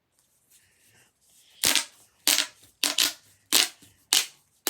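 Plastic pop tube popping as it is stretched or squeezed: a run of about six sharp snaps, one every half second or so, starting about a second and a half in.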